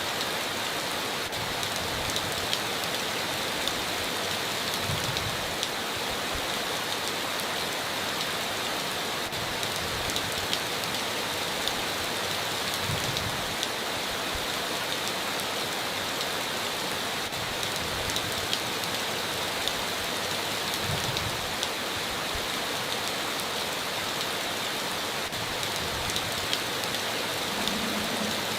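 Heavy rain on a tin roof: a steady hiss of rainfall with many sharp drop ticks, and a few brief dull thumps.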